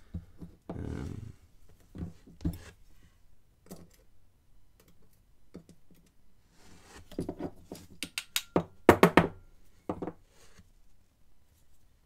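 Handling noise: light clicks and taps of a 3D-printed plastic padlock, metal tweezers and small lock pins against a plastic pinning tray, loudest as a quick run of sharp clicks about eight to nine seconds in.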